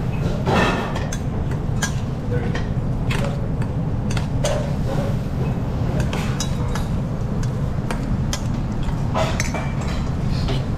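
Metal kitchen utensils clinking and knocking against pans and bowls in irregular short strikes, over a steady low rumble of kitchen background noise.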